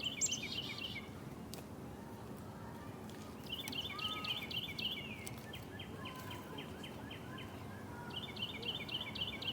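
Small birds singing: about four short phrases of quick repeated chirps, over a steady outdoor background hiss.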